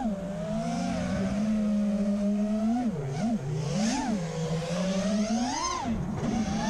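Brushless motors and propellers of a 6S FPV freestyle quadcopter whining, the pitch swooping up and down with the throttle. There are quick dips and rises about three and four seconds in, a climb to a high whine before six seconds, then a sharp drop.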